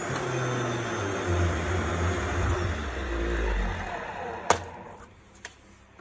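Electrolux UltraOne Z8810W vacuum cleaner motor running noisily, with a low hum that sinks in pitch: the noise comes from destroyed motor bearings. After about four seconds it fades away, with a sharp click and a fainter one near the end.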